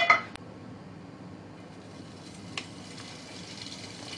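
Hot oil sizzling steadily in a nonstick frying pan on a gas burner as thin pork slices go in, with a brief clatter at the start and a single sharp click about two and a half seconds in.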